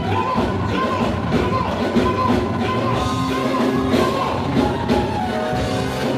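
Live band music with singing, a full band with a steady beat.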